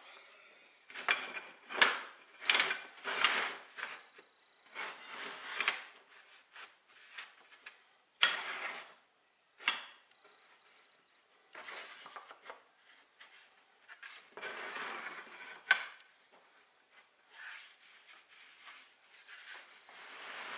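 Thin wooden strips being slid across a plywood workbench and pushed edge to edge, a run of irregular rubbing scrapes with a few sharp wooden clacks.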